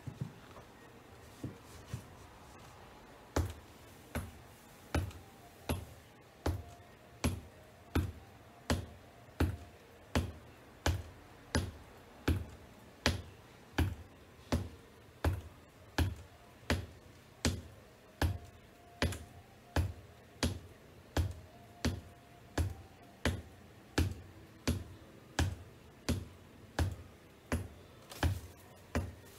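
Black wedge-heeled ankle boots tapping on a hardwood floor: a few scattered taps, then from about three seconds in a slow, even beat of about four taps every three seconds.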